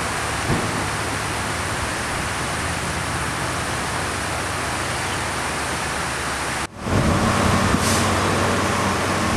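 A steady rushing noise, then an abrupt cut about two-thirds of the way through to a louder vehicle engine running with a steady low hum.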